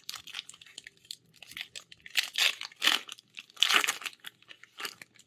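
Magic: The Gathering draft booster pack's foil wrapper being torn open and crinkled, in a run of irregular rips and rustles that are loudest in the middle.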